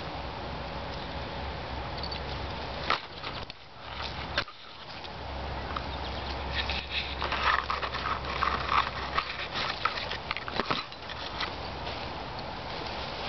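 Twigs and leaves of a bush rustling and crackling as a cat climbs through the branches, with sharp snaps or knocks about three seconds in, about four and a half seconds in and near the end. The crackling is busiest in the second half.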